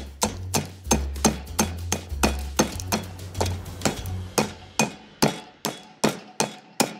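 Stone pestle pounding dried lotus seeds in a heavy stone mortar: steady sharp strikes, about two or three a second, cracking the seeds into a coarse meal.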